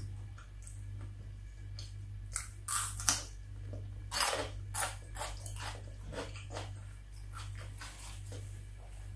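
Crunchy bites into a raw red bell pepper strip, two loud ones about three and four seconds in, followed by steady crunchy chewing of a few crunches a second. A low steady hum sits underneath.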